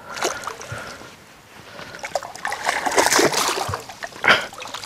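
A hooked bass splashing at the water's surface beside the boat as it is scooped into a landing net. The splashing comes in irregular bursts, heaviest in the middle, with one sharp splash near the end.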